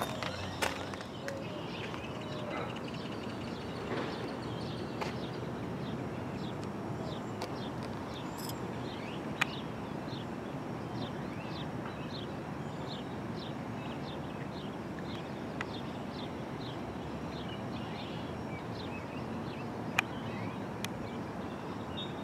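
Steady outdoor background noise with a bird calling in a long run of short, high chirps through the middle, and two sharp clicks, one about a third of the way in and one near the end.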